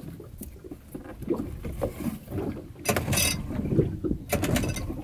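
Water lapping against the hull of a small open fishing boat, with scattered knocks and rattles of gear in the bottom of the boat. A louder rush of noise comes about three seconds in.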